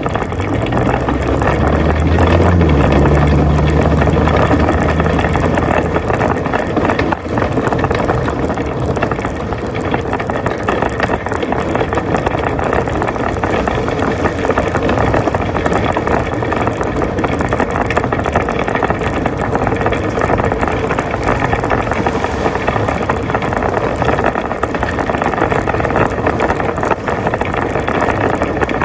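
Metal shopping cart rolling over road pavement, its wheels and basket rattling steadily. A low engine hum rises under it from about a second in and fades by about six seconds.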